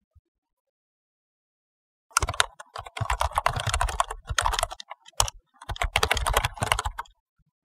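Keyboard typing sound effect, rapid keystroke clicks that match the quote's text appearing on screen. After about two seconds of silence, two fast runs of keystrokes with a short pause between them.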